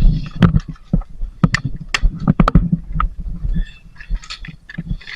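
Irregular clicks, knocks and low thumps close to the microphone, several a second, over a low rumble: movement and gear-handling noise during close-quarters airsoft play.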